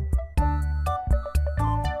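Background music with a steady beat over held bass and keyboard-like notes.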